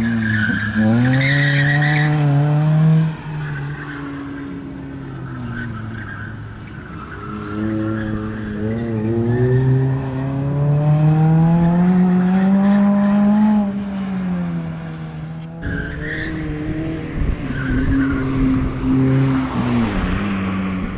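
A car's engine revving up and falling back again and again as it is driven hard around tight turns, with tyres squealing near the start and again late on.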